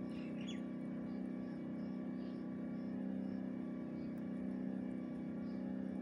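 A steady low mechanical hum made of several close tones, with faint small bird chirps near the start and soft high chirps repeating about twice a second.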